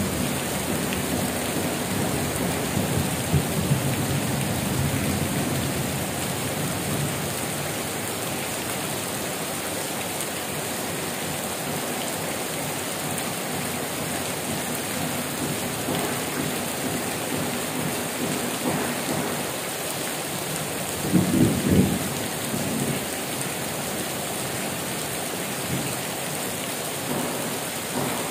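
Heavy rain pouring steadily onto corrugated metal roofs and leaves, with low thunder rumbling in the first few seconds and a short, louder rumble of thunder a little past two-thirds through.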